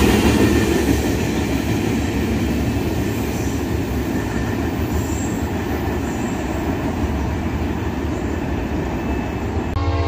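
Freight train of tank cars rolling past on the rails: a steady rumble and wheel noise, getting a little quieter over the first few seconds. Just before the end a locomotive horn starts to sound.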